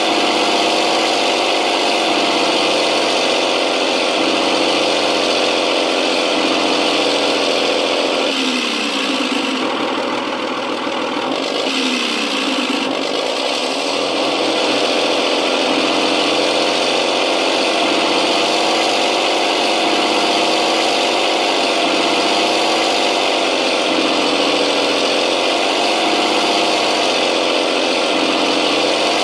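Simulated JS-2 heavy tank engine sound from an RC tank sound pack, running steadily; about eight seconds in the engine note shifts and bends for several seconds, then settles back to its steady run.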